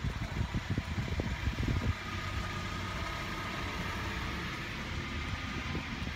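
Car engine idling just after starting, heard from inside the cabin: uneven for the first couple of seconds, then running steadily. The engine has started on a battery recharged from a laptop charger.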